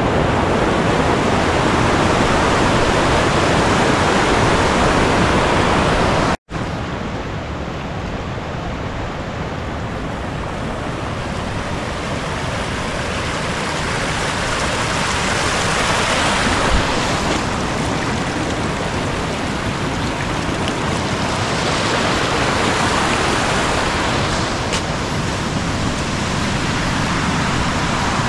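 Rushing water of a fast mountain stream, a loud steady rush that swells slightly now and then. It breaks off for an instant about six seconds in.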